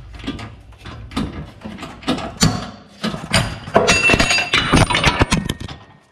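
Heavy steel parts knocking and clinking as they are handled on the plates of a hydraulic shop press, with a short metallic ring about four seconds in.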